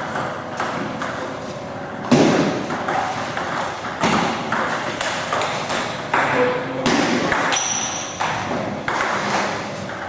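Table tennis ball in play: repeated sharp clicks of the celluloid ball hitting rubber bats and the table, with voices chattering in the background.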